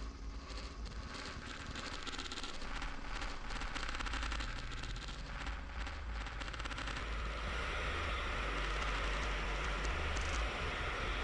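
Dense noise soundtrack: a steady low rumble under crackling static, opening out into a brighter, fuller hiss about seven seconds in.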